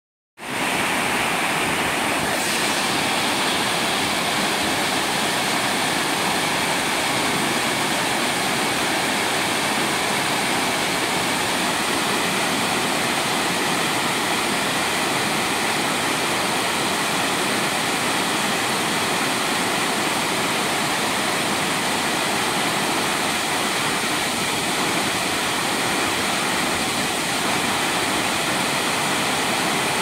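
Honey Run Waterfall, a small cascade, falling over stepped rock ledges and splashing into a shallow pool: a steady, unbroken rush of water.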